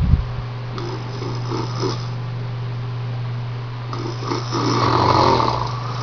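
A drunk man snoring in his sleep: two snores, the second, starting about four seconds in, longer and louder. A steady low hum runs underneath.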